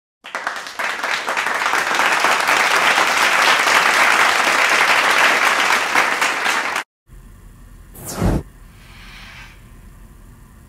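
Applause of many people clapping for about six and a half seconds, cutting off abruptly. A short whoosh follows about eight seconds in.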